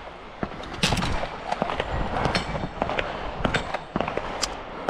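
Gunfire on a shooting range: a string of sharp cracks at irregular intervals, some louder than others, over a rustling background.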